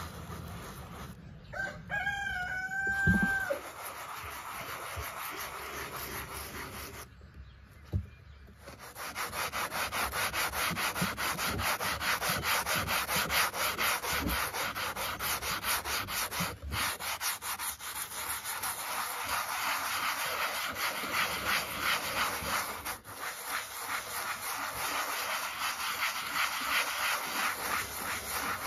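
Abrasive sanding block rubbed back and forth over the rusty steel blade of old grass shears, scraping off the rust in rapid, steady strokes after a short pause about seven seconds in. A rooster crows once about two seconds in.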